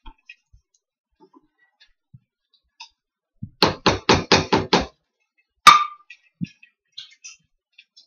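A spoon knocking against a skillet: six quick knocks in a row about halfway through, then one louder, sharper clank with a brief ring.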